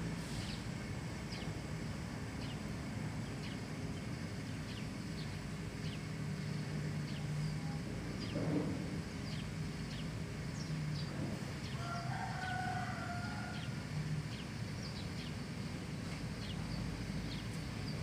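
Outdoor ambience: a bird repeats a short, high, falling chirp over and over, a little faster than once a second. A rooster crows once about twelve seconds in, over a low steady hum.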